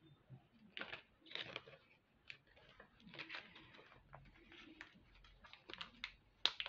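Small clear plastic zip-lock bags of metal beads crinkling and rustling as they are handled, in faint, irregular bursts with small clicks.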